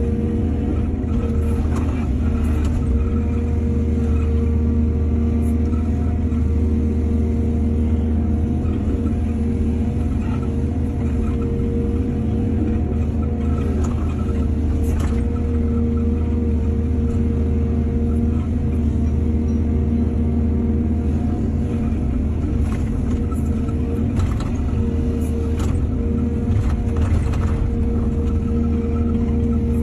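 Excavator's diesel engine running steadily, with occasional short knocks and clanks from the machine at work.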